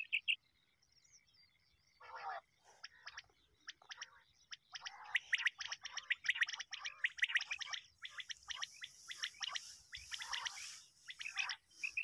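Common quail calling: rapid runs of short, repeated chirping calls that begin about two seconds in and go on densely.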